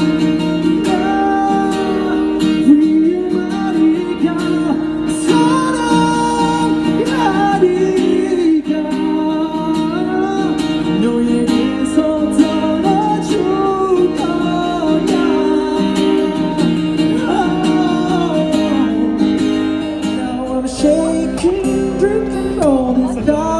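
A male singer performing a song live with a strummed acoustic guitar; near the end it cuts to a different song.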